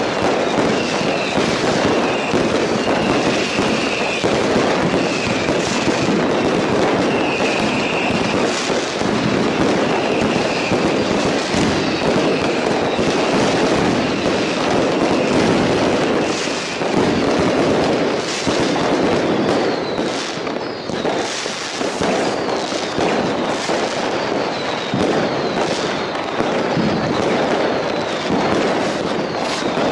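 Dense, unbroken fireworks barrage, many rockets and firecrackers going off together in a constant crackle of bangs. Short whistles repeat about once a second through the first half, and a few falling whistles come near the end.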